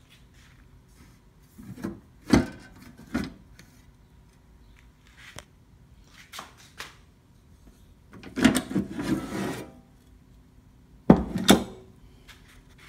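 Sheet-metal clunks and rattles from handling a Lortone 130 lapidary trim saw: a few separate knocks about two to three seconds in, a longer rattling clatter about eight to nine and a half seconds in, and two sharp knocks near the end. The saw is not running.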